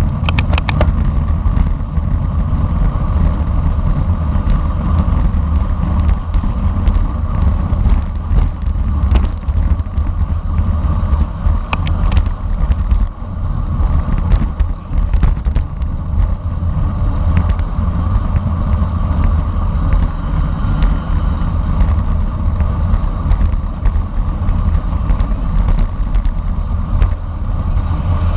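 Wind buffeting the microphone at riding speed: a loud, steady low roar, with a few brief clicks near the start and around nine and twelve seconds in.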